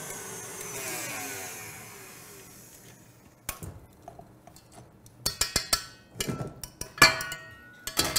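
Stand mixer motor winding down, its whine falling in pitch and fading over the first few seconds. Then a series of metal clanks and knocks from the stainless steel mixing bowl and whisk being handled, the loudest about seven seconds in.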